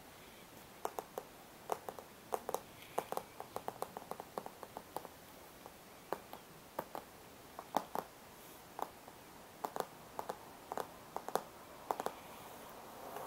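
Long fingernails tapping on a glossy cardboard box: dozens of sharp, irregular taps, some in quick runs and pairs, starting about a second in.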